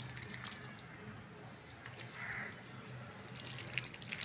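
Faint wet clicks and squelches of raw beef chunks being handled and dropped into a steel mixer jar, thickest near the end. A crow caws faintly about two seconds in.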